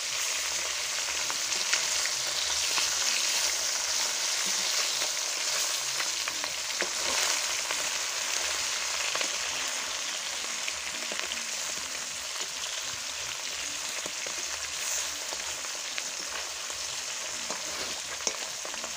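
Pieces of dhela fish frying in hot oil in a kadai, a steady dense sizzle, while they are turned over with a metal spatula. There are a few light ticks from the spatula in the pan.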